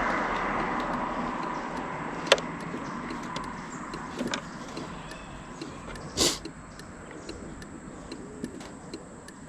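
Motor vehicle noise fading away over the first few seconds. It is followed by a quieter background with a few scattered sharp clicks and one short knock about six seconds in.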